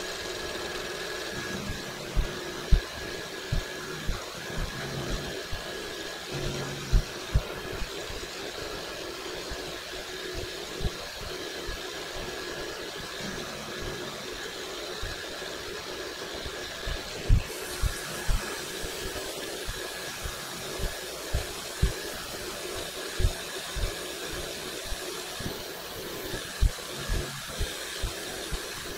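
PM-727M milling machine running steadily with an end mill taking a light cleanup pass across the top of a round workpiece: a steady motor and spindle whine, with scattered short, dull thumps throughout.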